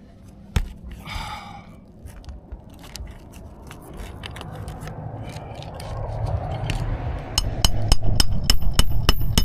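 Metal tool handling during roofing work: a sharp click, then scraping and scattered clicks. A quick run of ringing metallic clacks comes in near the end, over a low rumble that builds through the second half.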